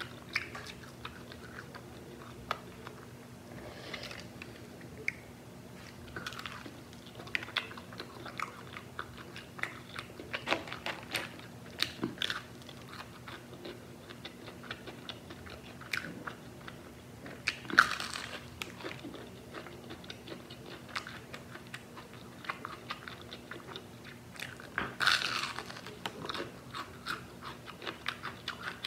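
Close-miked chewing and crunching of crispy fried chicken and French fries: many small crackles and clicks, with two louder crunching bites, one a little past the middle and one near the end.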